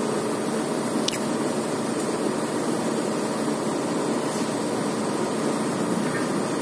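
A heavy engine running steadily at idle, with no hammer blows, and a faint short high squeak about a second in.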